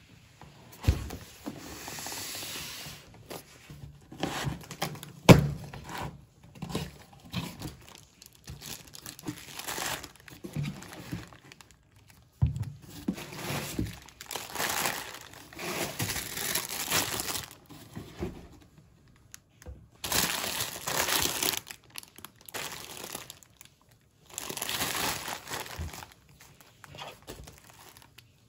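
Groceries being unpacked by hand: plastic bags and bubble wrap crinkling and rustling in repeated bursts, with a few sharp thuds as a box and packaged items are set down on a table, the loudest about five seconds in.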